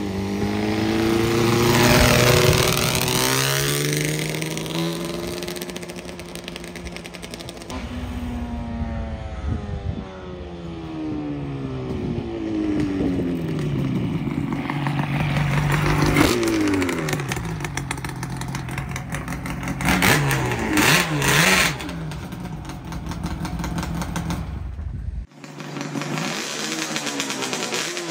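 Motorcycles riding past one after another, their engines accelerating, with the pitch sweeping up and then falling as each goes by. The sound cuts off abruptly near the end.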